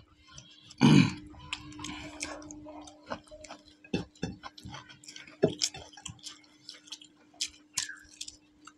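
Two people eating rice by hand: scattered short clicks and smacks of chewing and fingers working the food on the plates. There is one short, loud grunt-like vocal sound about a second in, and a faint steady hum underneath.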